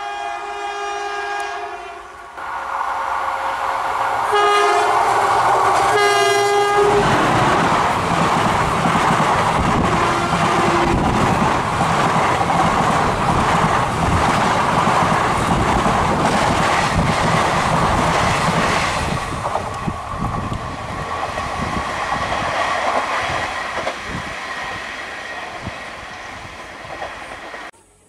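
WAP-4 electric locomotive's horn sounding one long blast and then two shorter ones, followed by the express's ICF coaches rushing past close by with loud wheel and rail noise for about twenty seconds. The noise cuts off abruptly near the end.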